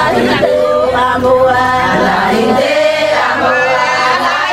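Several voices singing together in chorus, with long held notes that bend in pitch.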